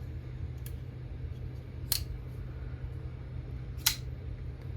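Two sharp metallic clicks about two seconds apart: a liner-lock folding knife's blade snapping into place as it is flicked with its front flipper. A low steady hum runs underneath.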